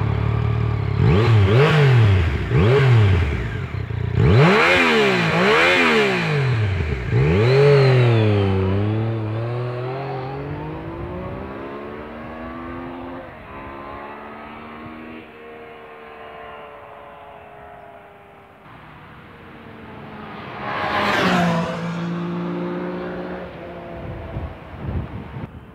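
Yamaha FZ-09's three-cylinder engine revved hard several times in quick succession, its pitch rising and falling, then riding away, the engine note dropping and fading. About 21 s in the engine comes up loudly again as it goes by.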